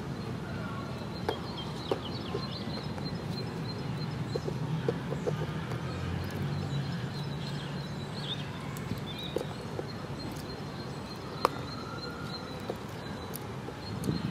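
Carrion crow pecking and tugging at a small plastic box on soil, giving short sharp taps now and then, the sharpest near the end. Behind it are a steady low city hum and small birds chirping.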